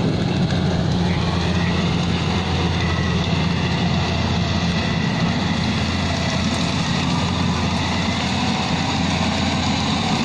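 Rice combine harvester's engine running steadily, a continuous low hum with no change in speed.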